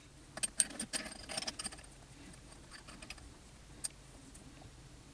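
A quick run of light clicks and rattles, like small hard objects being handled, for the first two seconds, then a single sharp click near the end.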